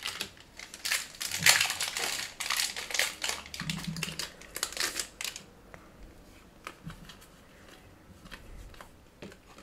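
Foil-plastic wrapper of a Magic: The Gathering Play Booster pack crinkling and being torn open for about five seconds, then only faint clicks of the cards being handled.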